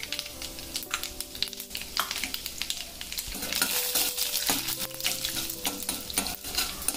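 Mustard seeds and urad dal crackling and sizzling in hot oil in a kadai as a spoon stirs them around the pan: the tempering for a curry.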